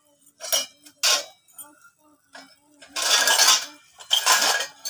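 Stainless-steel utensils clinking and clattering: a metal ladle knocking and scraping against steel bowls and pots, with two short clinks in the first second and longer, louder rattling in the second half. A faint steady hum runs underneath.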